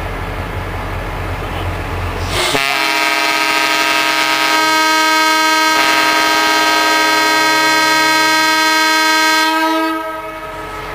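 A low steady rumble, then a few seconds in a loud, multi-tone air horn blasts for about seven seconds before cutting off.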